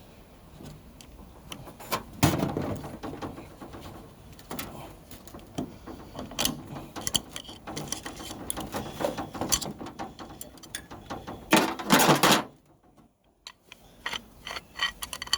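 Metal parts of a Turbo 400 automatic transmission being handled during teardown: a run of sharp metallic clicks and clatter, loudest just before the last few seconds, then a short pause and a few more clicks.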